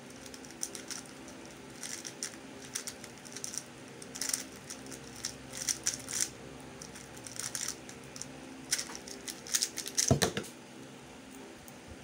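MF3RS2 3x3 speed cube being turned fast during a solve: an irregular run of light plastic clicks and clacks in quick clusters, ending about ten seconds in with a louder knock. A steady electric-fan hum runs underneath.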